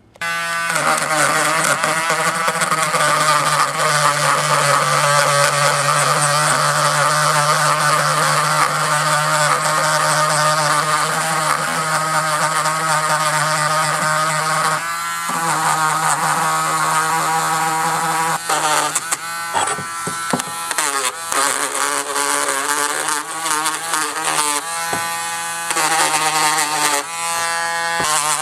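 Dremel rotary tool running at high speed, grinding the remaining rust off a steel hatchet head; its steady buzz wavers in pitch as it bears on the metal and briefly drops off a few times past the middle.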